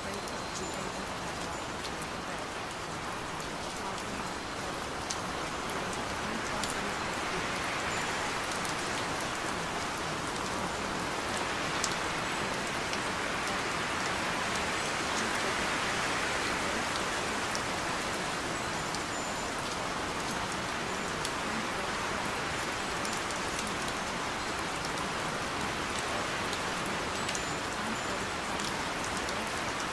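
Steady rain: a continuous hiss of falling rain with faint scattered drop ticks, swelling a little in loudness toward the middle.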